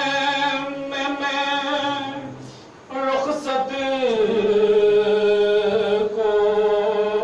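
A man's voice chanting a Shia lament (noha) unaccompanied, in long held notes. It breaks for a breath a little before three seconds in, then one note slides down about four seconds in.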